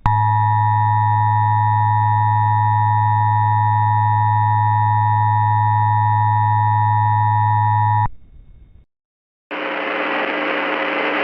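Emergency Alert System attention signal: a loud, steady two-tone alert tone with a low hum beneath, held about eight seconds and cut off sharply. After a brief silence, hissy radio static with faint steady tones starts near the end, as the weather-radio broadcast comes in.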